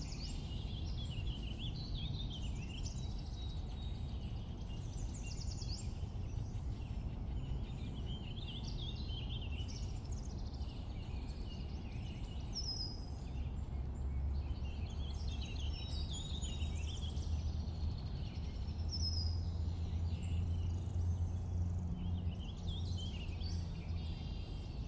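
Outdoor ambience: small birds chirping and trilling in short phrases throughout, over a steady low rumble.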